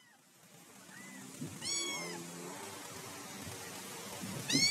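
Domestic cat meowing three times, each meow rising then falling in pitch: a faint one about a second in, a louder one shortly after, and another near the end.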